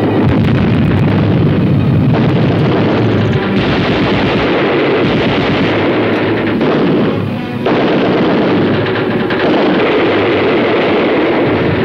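Film battle sound effects: dense, continuous rifle and machine-gun fire with booming blasts, laid over dramatic background music. The firing dips briefly about seven seconds in, then picks up again.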